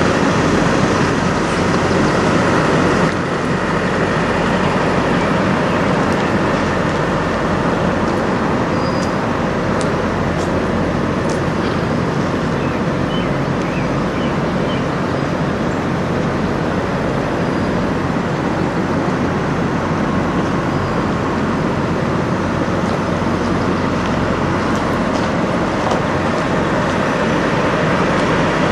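A diesel engine idling steadily close by, a constant low hum under an even rumble.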